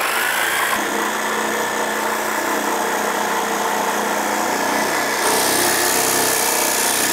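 Corded reciprocating-blade power saw running steadily as it cuts through a wooden bench top, its motor whine holding level. From about five seconds in the cutting turns harsher and hissier.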